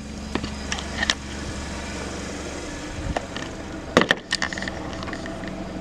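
A steady low hum with a few sharp clicks and knocks over it, the loudest of them about four seconds in.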